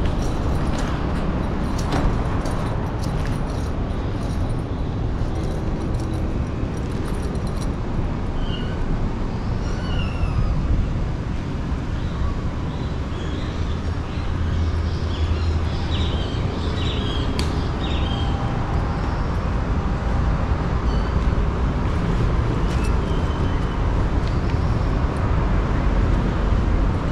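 Steady low rumble of nearby street traffic, with a few short, high calls about a third and two thirds of the way through and a few light clicks.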